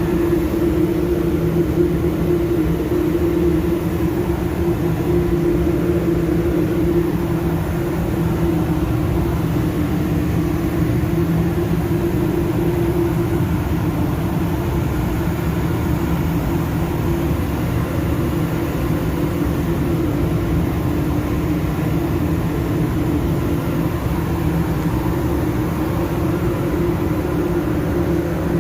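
Steady motor hum with a held mid-low tone, running without a break.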